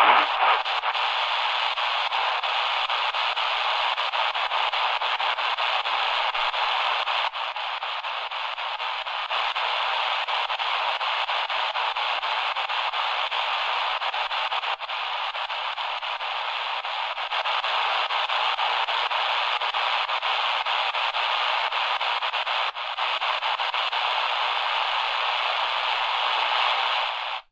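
Steady shortwave static hiss from an XHDATA D-328 portable radio's speaker as its dial is tuned across a shortwave band, with no clear station coming through. The hiss drops slightly in level a few times.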